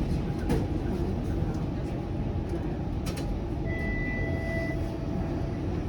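Bombardier Flexity Outlook streetcar running along its track, heard from inside: a steady low rumble with a few sharp clicks and knocks, and a brief steady tone about four seconds in.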